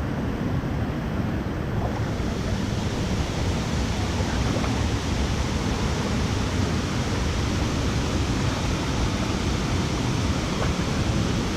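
Steady, loud rush of falling water from a waterfall close by, getting brighter about two seconds in.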